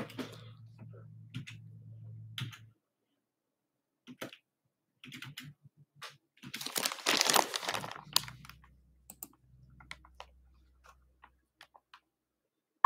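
Typing on a computer keyboard: scattered key clicks as a number is entered. A little past halfway there is a louder rustle of plastic wrap lasting about a second and a half.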